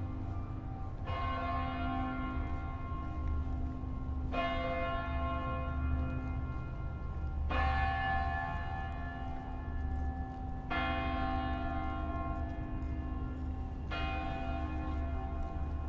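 A large tower bell tolling slowly: about five strikes some three seconds apart, each ringing on with many overtones until the next. A steady low rumble lies beneath.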